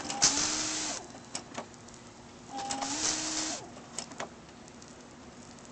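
BMW M5 headlight washer firing twice: the pop-up nozzle jets fluid at the headlight with a hiss over the steady whine of the washer pump, each spray about a second long, the second starting about two and a half seconds after the first. A few light clicks fall between and after the sprays.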